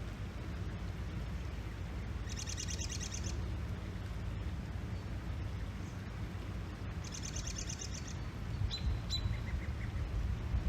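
A songbird sings two rapid trills of about a second each, some five seconds apart, then gives a couple of short chips. Under it runs a steady low outdoor rumble.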